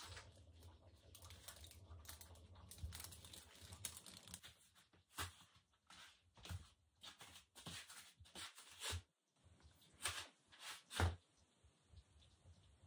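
Faint, irregular rustling and crinkling, with a scatter of short, sharp scrapes and clicks, the loudest about ten and eleven seconds in.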